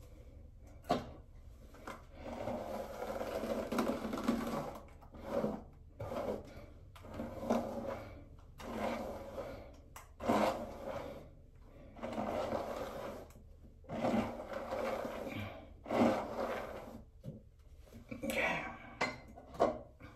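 Repeated rustling strokes through long wig hair, one roughly every second or two, each about a second long, with a few sharp taps in between.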